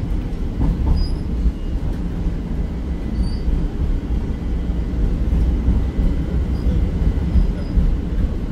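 Pittsburgh Red Line light rail car running, heard from inside: a steady low rumble of wheels on track, with brief faint wheel squeals about one and three seconds in.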